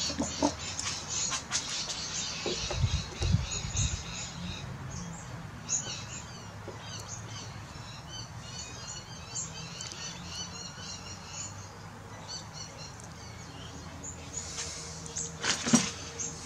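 Small birds chirping rapidly in the background for several seconds around the middle, over a steady low hum. Tools and metal parts being handled at a small bench lathe give a few knocks early on and one sharp click near the end.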